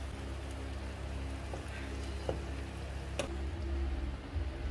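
Water at a rolling boil in a pot on a gas burner, a steady bubbling with a few light ticks. About three seconds in it gives way to a quieter, duller sound.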